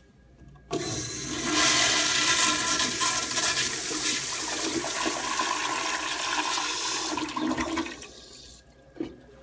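Vintage American Standard Madera toilet flushing: water rushes in suddenly under a second in and swirls loudly down the bowl, fading out about eight seconds in. A short knock follows near the end.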